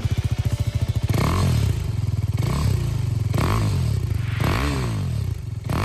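Husqvarna Vitpilen 401's single-cylinder engine running at idle and revved in about five quick throttle blips, roughly one a second, each rising and falling in pitch.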